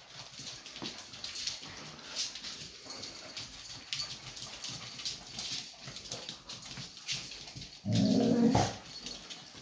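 Kerry blue terriers' claws clicking and tapping on a hard wood-effect floor as the mother and pups move about. About eight seconds in, one of the dogs gives a single loud, low vocalization lasting nearly a second.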